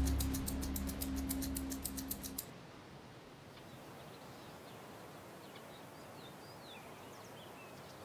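Score music with low held notes and a fast, even ticking percussion, cutting off about two and a half seconds in. Then faint open-air ambience with a few short, thin, high bird chirps.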